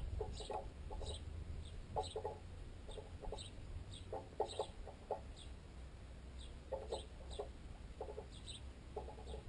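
Sparrows pecking at a piece of baguette wedged in a tent guy line, the pecks carried through the line into the tent pole so they sound unnaturally loud: quick runs of several taps at a time, repeated every second or so, with short chirps scattered throughout.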